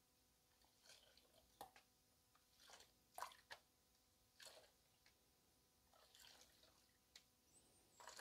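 Faint water sloshes and drips from a plastic gold pan being dipped and tilted in a tub of soapy water while paydirt is washed down. About ten short splashes come a second or so apart; the loudest falls about three seconds in.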